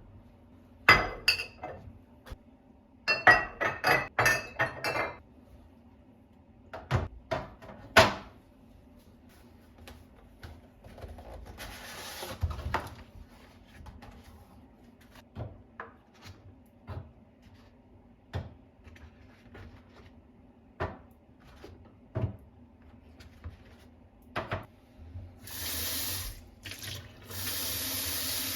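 Kitchen work at a sink: dishes and glassware clinking and knocking, with a cluster of ringing clinks a few seconds in. A water tap runs briefly near the middle and twice near the end.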